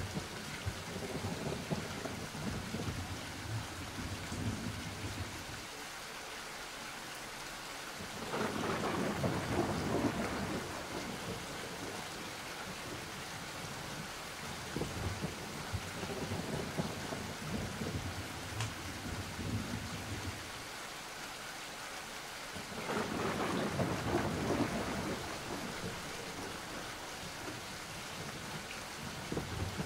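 Steady rain with rolling thunder, part of a spooky ambience soundscape. The thunder swells louder twice, a little under a third of the way in and again about three-quarters through.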